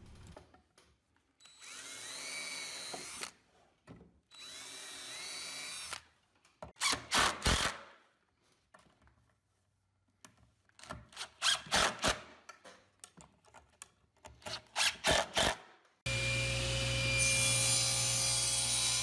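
A DeWalt cordless drill pre-drilling two holes into plywood, each a steady whine of about two seconds. Then a DeWalt DCF888 cordless impact driver drives pan head screws in three short bursts of rapid impacts. About sixteen seconds in, a table saw is heard running steadily.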